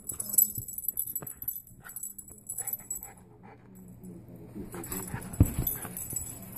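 A miniature pinscher tugging and shaking a plush toy on a blanket-covered couch: bursts of metallic jingling with thumps and blanket rustling, and one heavy thump about five and a half seconds in.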